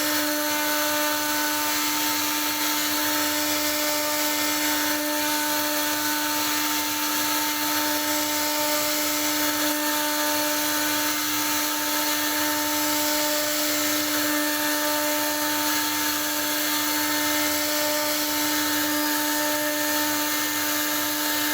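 CNC router spindle running at a steady pitch, with a constant whine over a hiss, while it carves wood.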